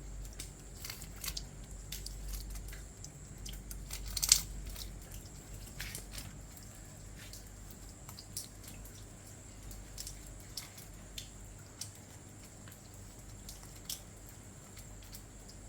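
Rain falling at night: irregular drips and drops tapping close to the microphone, the loudest about four seconds in, over a faint steady high-pitched tone.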